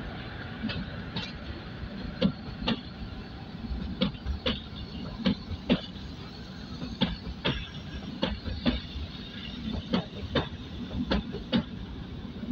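Narrow-gauge Shimla toy-train coaches rolling slowly past, their wheels knocking over the rail joints: sharp clicks mostly in pairs, a pair about every second and a half, over a steady low rumble.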